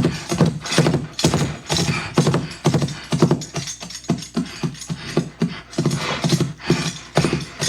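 Horse hoofbeats clip-clopping in a steady run of quick, sharp strikes, made as foley for a horse-and-rider scene.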